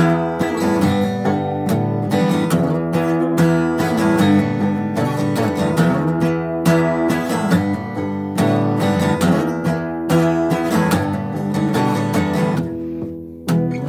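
Acoustic guitar strummed in a rhythmic riff around an open E chord, with percussive strokes and a move up to a power chord on the A string. Near the end a chord is left to ring and fade.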